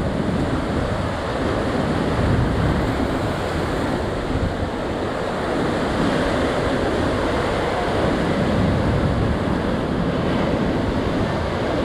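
A steady rushing noise with a low rumble, unbroken and even in level.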